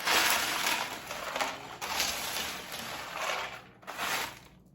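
A spoon scooping dry, seasoned nuts-and-bolts snack mix, with the cereal pieces and nuts rattling and crunching together. It comes in about three scoops, the first the loudest.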